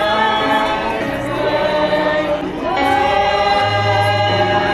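Group of carol singers singing a Christmas carol in long held notes. A steady low accompanying note comes in near the end.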